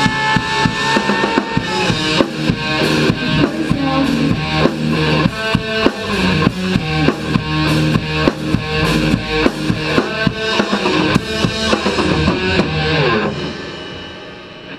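Rock music with a full drum kit driving a steady beat under guitar; the band stops about 13 seconds in and the last chord rings away and fades.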